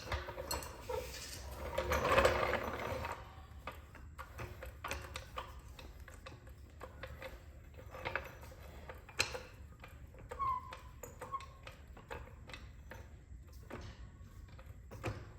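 Hand work on a truck's rear brake assembly: metal scraping for a couple of seconds about a second in, then scattered light metallic clicks and knocks, with a brief squeak about two-thirds of the way through.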